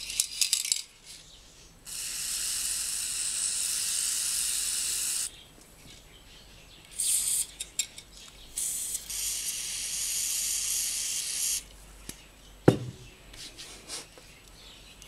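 Aerosol spray lubricant hissing in three bursts, a long one of about three seconds, a short one, then another of about three seconds, sprayed onto the bearing of a grass trimmer's electric motor. A single sharp knock near the end.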